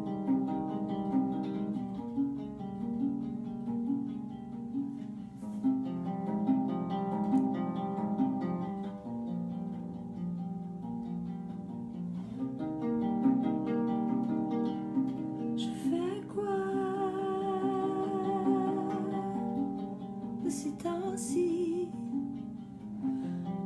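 Acoustic guitar played in a repeating picked pattern of notes. About two-thirds of the way in, a voice joins, singing long notes with vibrato.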